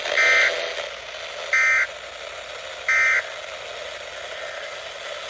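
Emergency Alert System end-of-message data bursts from a weather radio: three short, identical buzzy screeches, each about a third of a second long and a little over a second apart, marking the end of the alert. Steady radio hiss runs underneath.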